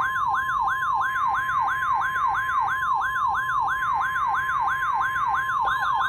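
NOAA Weather Radio warning alarm tone, the steady 1050 Hz test tone of the weekly alarm test. Over it a second, siren-like tone sweeps downward again and again, about three or four times a second, quickening near the end.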